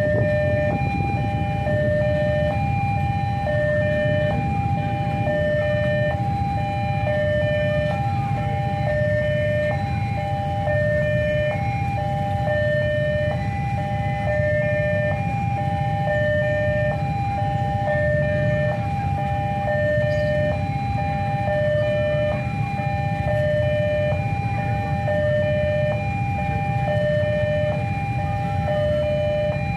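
Railway level-crossing warning alarm sounding, a two-note electronic tone alternating steadily between a higher and a lower note about once a second, signalling that a train is approaching and the crossing is closed. A steady low rumble runs beneath it.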